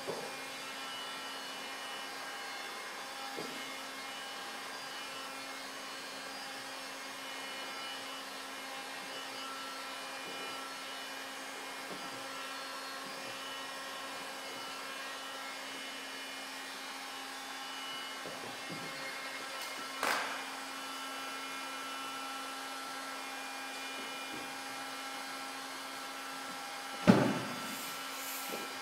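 Electric heat gun running with a steady hum while it heats window tint film on a car side window. A sharp knock about two-thirds of the way in and a louder thump near the end.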